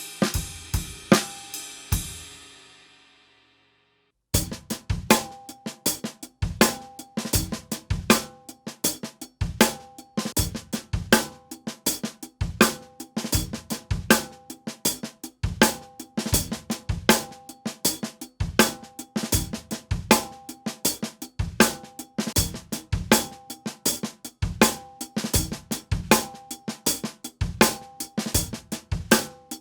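A drum kit played with wooden drumsticks. A short phrase of hits with cymbals rings out to silence, then about four seconds in the kit starts a steady groove of snare, bass drum, hi-hat and cymbal strokes.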